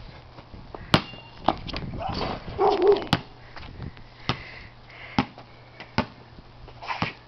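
A basketball bouncing on a concrete slab: single sharp bounces roughly once a second, with a longer muffled burst of noise a couple of seconds in.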